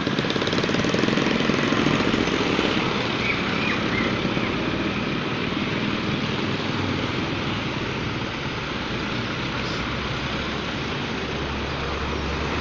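A vehicle engine running steadily in traffic with road noise, and a deeper engine rumble growing louder near the end.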